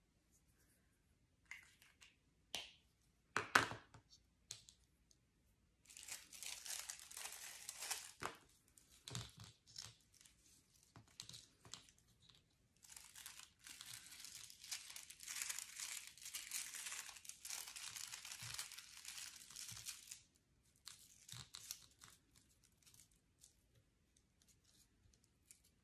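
Clear plastic cellophane film crinkling and rustling as it is handled and folded around a small craft piece, in two long stretches. A few clicks and one sharp tap come in the first few seconds, the tap the loudest moment.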